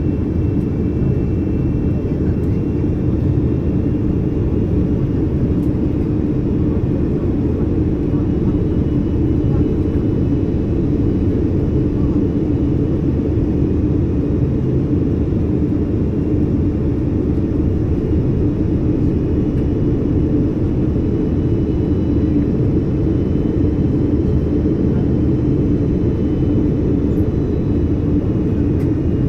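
Steady engine and airflow noise inside the cabin of an Airbus A330 airliner coming in to land, a constant low rumble with a faint high engine whine above it.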